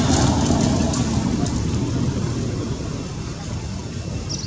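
Low rumble of a passing motor vehicle, fading away.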